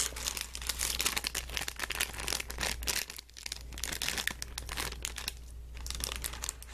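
Stroopwafel packet crinkling as hands push the waffles back into it: a dense run of crackles, pausing briefly about three seconds in and again about five and a half seconds in.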